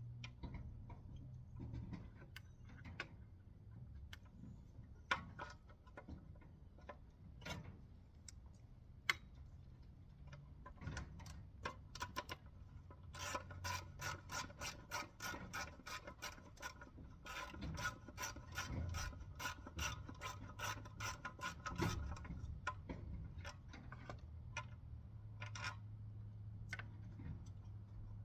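Hand-tool work on a small engine: scattered clicks and knocks, then a long run of rapid clicking from about 13 to 22 seconds in, over a low steady hum.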